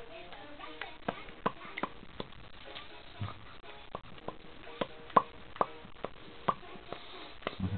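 A series of sharp mouth pops, about a dozen at irregular intervals, the loudest a little past the middle: a baby's attempts at a popping sound with the lips.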